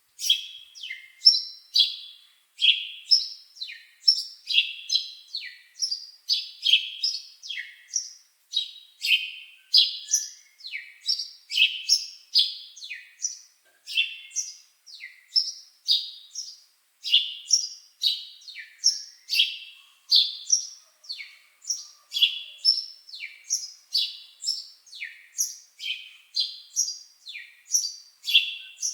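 Bird chirping over and over, short high notes that each sweep quickly downward, about two to three a second, with no other sound behind them.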